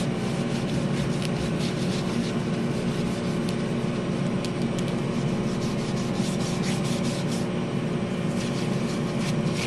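Tissue rubbed back and forth over a laser-engraved wooden agenda cover in quick repeated strokes, wiping the engraving residue off the surface. A steady low machine hum runs underneath.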